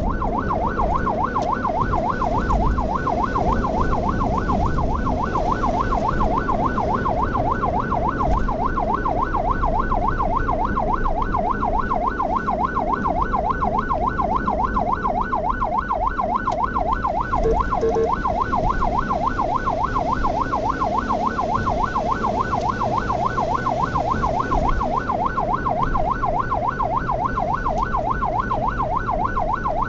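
Ambulance electronic siren in yelp mode, a fast rising-and-falling wail repeating about three to four times a second without a break, over the road and engine noise of the moving vehicle. A short blip of a lower tone sounds about two-thirds of the way through.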